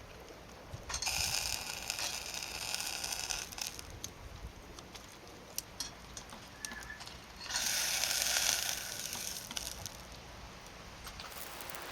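Wood fire in a fire pit crackling with scattered sharp pops, broken twice by loud bursts of hissing, the first a little over two seconds long and the second shorter.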